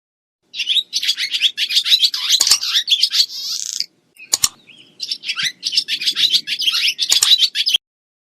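Many small birds chirping rapidly and densely at once, in two stretches of about three seconds each with a short break between, and a few sharp clicks among them.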